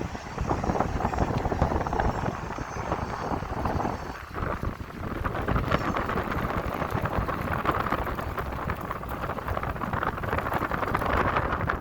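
Wind buffeting the microphone, a rough crackling rush over a steady low rumble, with a brief lull about four seconds in.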